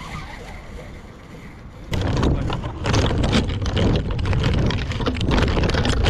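Branches and twigs rustling and cracking against a racing drone caught in a tree, picked up close by its onboard camera, as a rope shakes it loose. The sound jumps from a low rustle to a loud, dense crackling about two seconds in.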